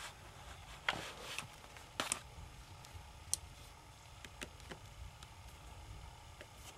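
Scattered light clicks and taps of small hard objects being handled, about a dozen over several seconds, with a faint steady hum underneath.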